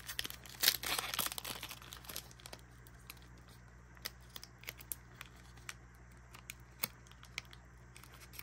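Foil booster pack wrapper being torn open and crinkled by hand: a run of small crackles, loudest as the tear starts about a second in, then sparser crinkles.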